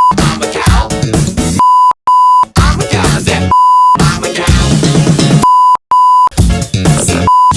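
Censor bleeps, a steady 1 kHz tone, repeatedly cutting into an upbeat pop song with sung vocals, replacing each sung "beep" and "meow". The bleeps last about half a second each and come roughly every second or two, twice as back-to-back pairs, with the song muted while each one sounds.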